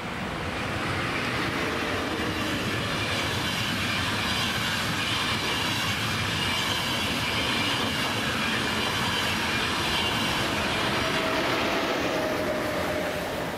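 ÖBB Class 1016 Taurus electric locomotive hauling a EuroCity train past at speed: a steady, loud rush and rumble of the locomotive and coaches' wheels on the rails. It builds over the first second and starts to fade near the end as the last coaches go by.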